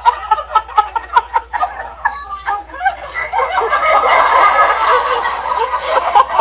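AI-generated audience laughter from Meta's Audiobox: a crowd of people laughing, in quick choppy bursts for about two seconds, then after a short dip swelling into a fuller, continuous laugh.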